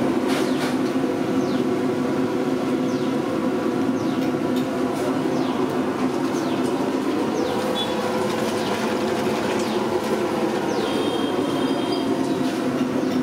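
Large gas burner running steadily under a big pot of water, a loud even rushing noise with a low hum in it. Short high falling chirps sound over it every second or so.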